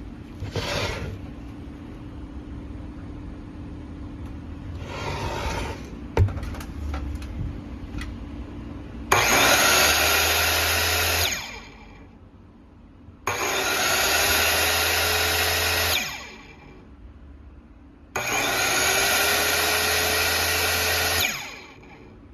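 Hitachi Koki C5YB 125 mm dust-collecting circular saw run with no load three times, each run two to three seconds: the motor winds up to speed with a rising whine, then spins down when the trigger is let go. Before the runs, two short rustling noises and a sharp click.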